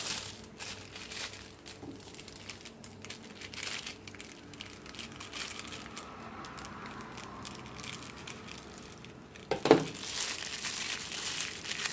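Clear plastic piping bag crinkling and rustling as it is handled and its tip is snipped with scissors, with one louder knock near the end.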